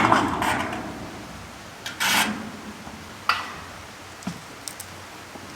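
Rubbing and scraping of roofing materials being handled, fading over the first second. A short scrape follows about two seconds in, then a sharp knock and a few light ticks.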